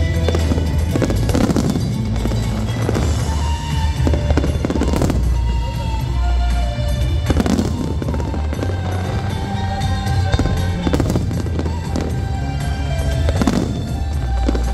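Fireworks going off, several irregular bangs and crackles, over loud show music with a steady heavy bass.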